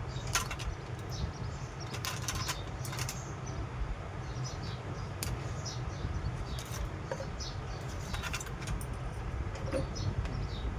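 Faint chirping of small birds, over a steady low hum, with scattered sharp clicks and rattles.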